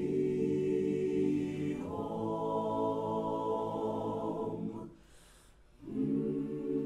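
Mixed choir singing a cappella in slow, held chords, moving to a new chord about two seconds in. The singing breaks off about five seconds in for a brief near-silent pause, then resumes on another long held chord.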